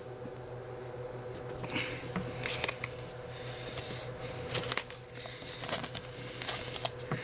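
Pokémon trading cards and plastic card sleeves being handled: soft scattered rustles and light crackly taps, over a steady low hum.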